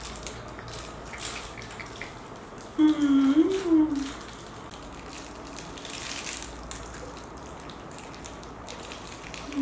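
A short crooning vocal sound, rising then falling in pitch, about three seconds in, from the man or one of the baby macaques he is cradling. A faint steady hum at the same pitch follows, with soft rustling and small clicks of cloth and handling throughout.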